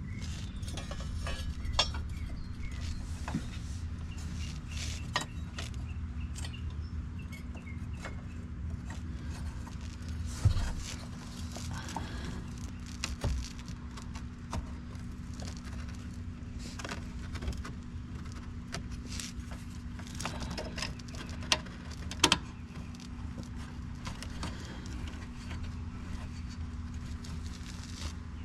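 Scattered clicks, clinks and knocks of hand tools and metal parts being handled, with a few sharper knocks about ten seconds in and twice just past twenty seconds, over a steady low hum.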